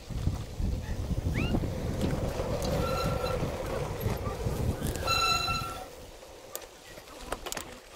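A mountain bike rolling along a dirt trail: tyre rumble and wind buffeting on the camera microphone, easing off about six seconds in. A brief high-pitched squeal sounds twice, near three seconds and again around five seconds.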